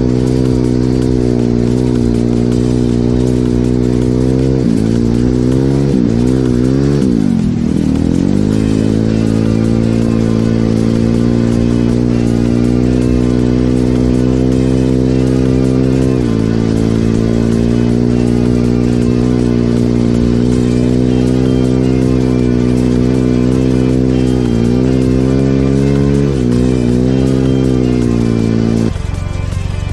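Single-cylinder four-stroke engine of a 150 cc pit bike pulling under throttle while riding through snow. The revs fall and climb back between about four and nine seconds in, with brief dips again partway through and near the end. Just before the end it gives way to music.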